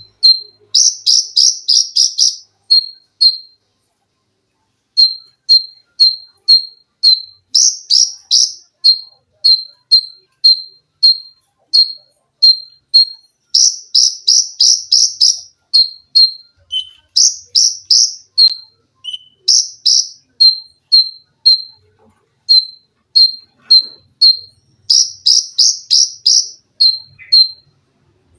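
Konin (kolibri ninja) sunbird singing: short, high, sharp notes repeated about twice a second, broken several times by rapid runs of higher, shriller notes.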